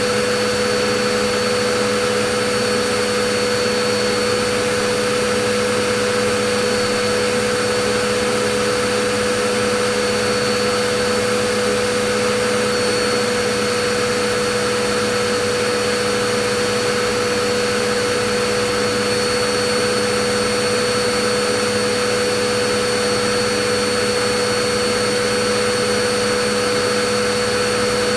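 Vacuum cleaner motor running steadily: a constant, even roar with a fixed hum and a high whine in it, unchanging throughout.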